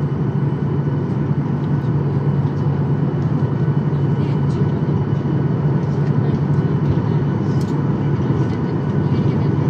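Steady engine drone heard inside the cabin of a Boeing 737-800 taxiing on low thrust from its CFM56-7B turbofans, with a thin steady whine above the low rumble.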